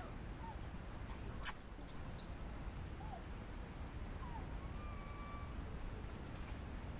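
Outdoor ambience with a steady low rumble of wind, a few faint short whistled animal calls, and one sharp click about a second and a half in.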